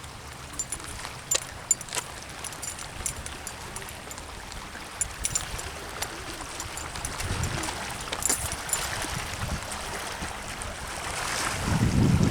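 Water trickling and lapping at the shoreline, with scattered sharp clicks and ticks. Wind gusts buffet the microphone near the end.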